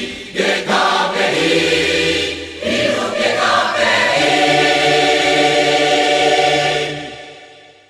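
Four-part a cappella choir singing the closing phrase of a church anthem. About four seconds in the voices settle on a long held final chord, which fades away near the end.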